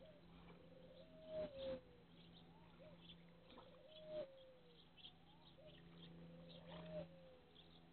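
Koi slurping and splashing at the water surface as they suck bread from a hand, in a few short bursts. Behind it, a bird cooing: a single call that holds and then falls, repeated about every two seconds, over a steady low hum.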